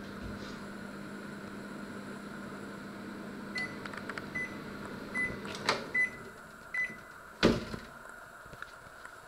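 Panasonic inverter microwave oven running with a steady hum, then finishing its cycle: five short high beeps about 0.8 s apart, the hum stopping with a click, and a sharp clunk as the door latch releases and the door is opened.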